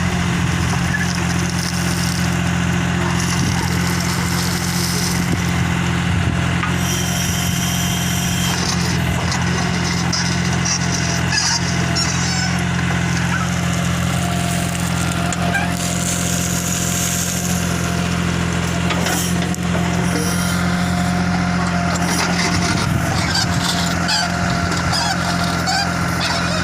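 Diesel engine of a Bull backhoe loader running steadily while working. A brief high-pitched tone is heard about seven seconds in.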